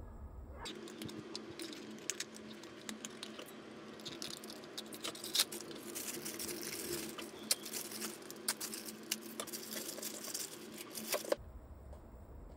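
Clear plastic packaging crinkling and rustling with many sharp crackles as small plastic figure parts are unwrapped by hand. It starts about a second in and stops suddenly about a second before the end.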